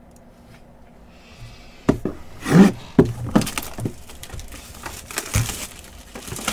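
Cardboard jersey box being handled and opened: a short sliding scrape about a second in, then a run of knocks and handling noise with plastic rustling.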